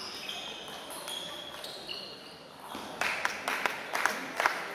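Short high squeaks, like shoe soles on a sports-hall floor, then from about three seconds in a quick run of sharp table tennis ball clicks, several a second, as the ball is bounced and struck.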